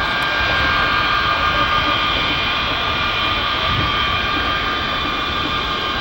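A B-52 bomber's eight jet engines running at taxi power as the aircraft rolls past: a steady whine of several high tones over a broad rumble.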